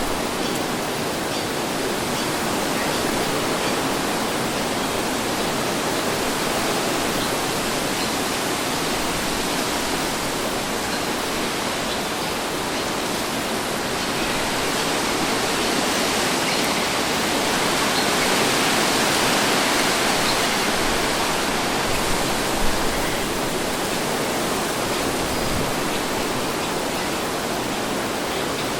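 Steady wind, a soft even rush that swells gently about halfway through and eases off again.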